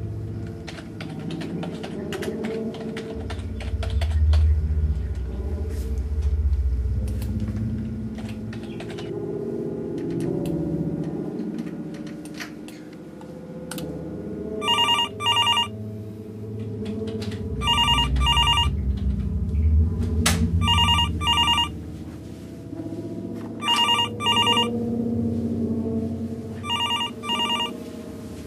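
Keyboard typing and mouse clicks over a low background drone, then a telephone ringing from about halfway, in repeated double rings about every three seconds.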